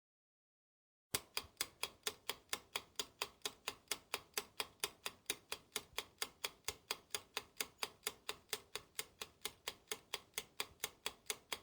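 Clock-style ticking sound effect, a fast, perfectly even tick of about four to five ticks a second that starts abruptly about a second in: the countdown timer of a quiz question.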